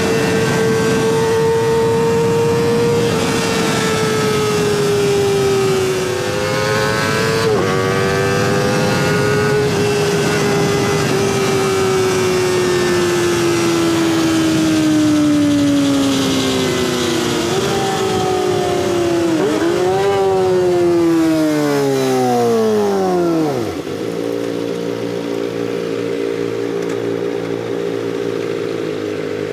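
Kawasaki ZX25R 250 cc inline-four through a stainless Sphere full-system exhaust, ridden at very high revs. The engine note sinks slowly as the bike slows, with brief upward blips on downshifts around 17 and 19 seconds in. About 24 seconds in it drops steeply to a steady idle.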